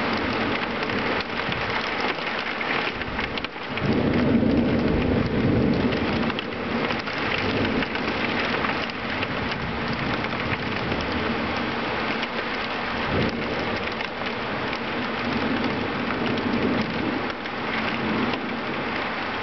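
Heavy rain hissing steadily in a thunderstorm, with a low roll of thunder that comes in suddenly about four seconds in and a shorter low thump near the middle.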